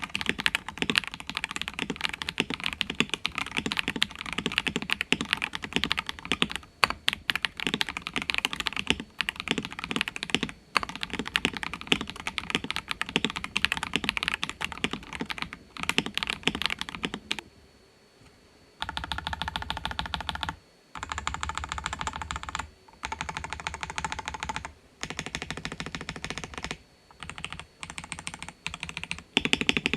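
Fast typing on a mechanical keyboard with stock Akko CS Radiant Red linear switches under PBT cherry-profile keycaps, the keystrokes clacking in a dense, continuous run. Past the middle there is a short pause, then the typing comes in quick bursts with brief gaps between them.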